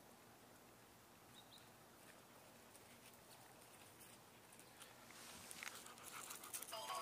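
Near silence with faint outdoor ambience. About five seconds in, a run of faint clicks and rustles starts and grows louder.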